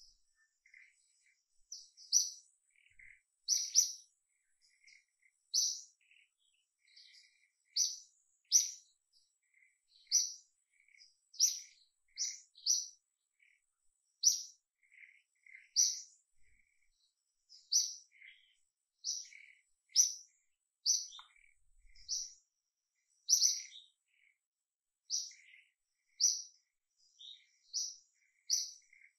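A small bird chirping over and over: short, sharp, high chirps about every second or two, with softer, lower notes in between.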